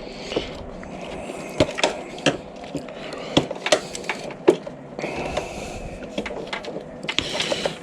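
Irregular light clicks and knocks of hand tools and parts being worked inside a dismantled autoclave.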